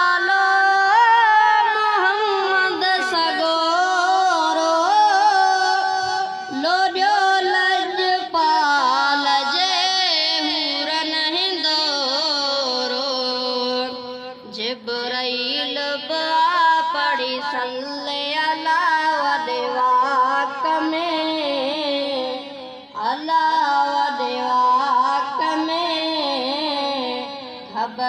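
A Sindhi naat sung by a high voice in long, wavering, ornamented phrases, with brief breaths between phrases.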